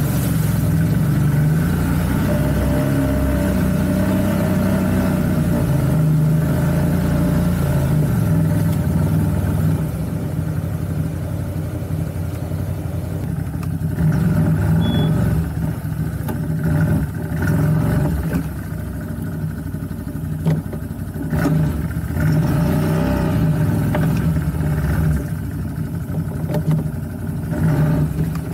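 CFMoto CForce 1000 ATV's V-twin engine running under a varying throttle while riding, its pitch rising and falling. It gets quieter about ten seconds in, and a few sharp knocks come in the second half.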